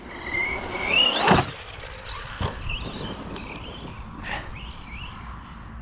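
Brushless electric motor of an Arrma Kraton 4S V2 RC monster truck whining under throttle, rising in pitch over the first second or so. A thump follows, then several shorter bursts of throttle that rise and fall.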